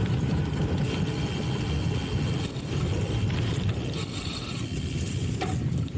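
Wind buffeting the microphone over the rolling rumble of a cyclocross bike being ridden, with a couple of brief rattles near the end.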